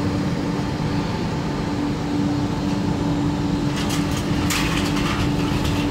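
Z24500 electric multiple unit standing at the platform with its onboard equipment running: a steady humming tone over a low rumble, with short bursts of hiss near the end.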